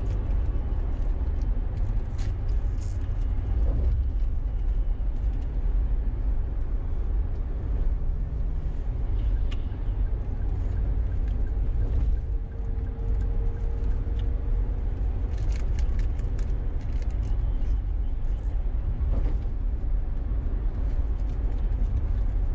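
Car cruising on a highway at about 50 mph, heard from inside the cabin: a steady low rumble of road and engine noise, with a few faint ticks.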